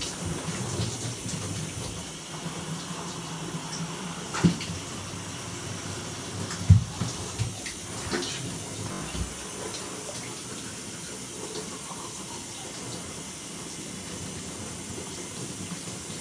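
A shower running steadily, an even rush of water, with a few sharp knocks near the middle, the loudest about seven seconds in.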